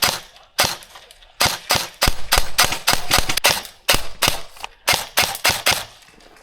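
Airsoft guns firing in quick strings of sharp snapping shots, several short bursts with brief pauses between them, stopping just before the end.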